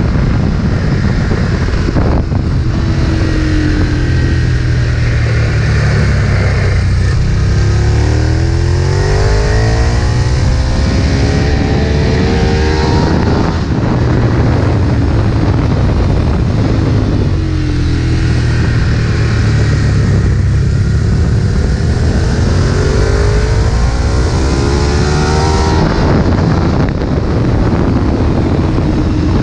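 Ducati 1098's L-twin engine at full throttle on a race track, its pitch climbing in rising sweeps through the gears about 8 and 20 seconds in, dropping back between them.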